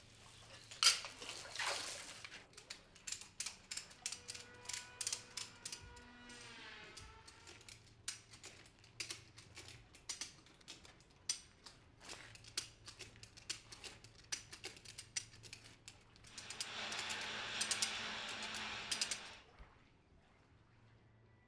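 Workshop tool sounds: a run of irregular clicks and knocks, a short squeal about six seconds in, and a few seconds of hissing noise near the end.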